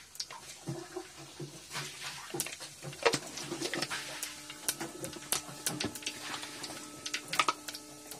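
Mustard and cumin seeds frying in hot oil in a small metal pot: a sizzle with many irregular sharp crackles and pops, the tempering (tadka) for a curry.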